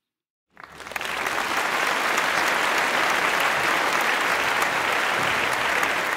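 Audience applause, dense and steady, swelling up about half a second in and cutting off abruptly at the end.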